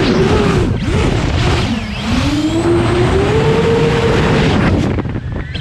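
A 12S X-class racing drone flying hard: its four brushless motors and large propellers make a loud buzzing whine whose pitch dips and climbs as the throttle is chopped and punched.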